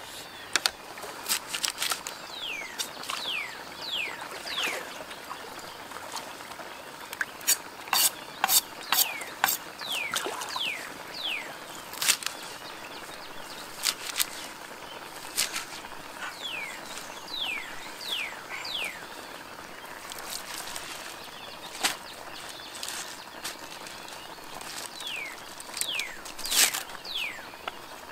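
Kitchen knife chopping leafy greens and spring onions on a wooden chopping board: irregular sharp knocks of the blade striking the wood, some in quick runs. Short, high, falling chirps repeat in the background.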